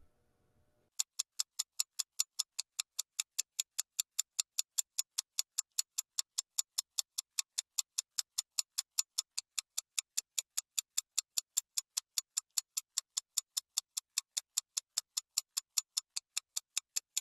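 Clock-ticking sound effect laid over a fast-forwarded stretch, a steady run of about four sharp ticks a second that starts about a second in and stops just before the end.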